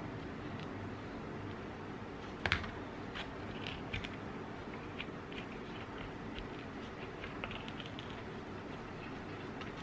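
Metal spoon digging the stone out of a peeled peach: scattered short scrapes and clicks as the spoon works against the pit, the sharpest click about two and a half seconds in, over a steady low hum.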